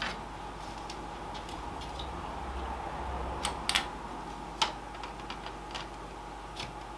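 Scattered light clicks and taps from handling computer hardware, the sharpest a few close together about three and a half to four and a half seconds in, over a steady hum of running PC fans.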